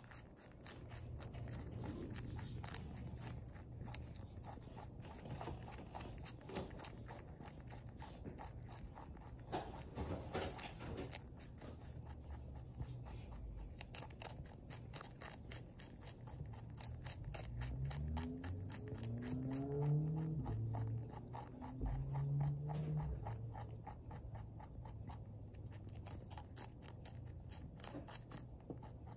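Pet rabbit eating lettuce: a quick, steady run of crisp crunching chews. A low hum runs underneath, and in the middle a low sound whose pitch bends up and down rises over it for a few seconds.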